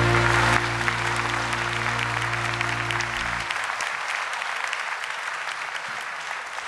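Audience applause over the last held chord of a song; the music stops about halfway through, and the clapping carries on and gradually dies down.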